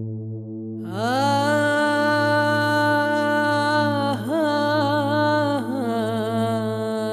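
Music: a steady low drone, joined about a second in by a long held wordless sung note that slides up into pitch and then bends down and back twice.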